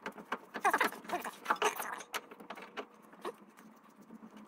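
New tie rod end being spun by hand onto the threaded inner tie rod: light metal clicks and rattles, with a few short squeaks in the first two seconds, then mostly quiet.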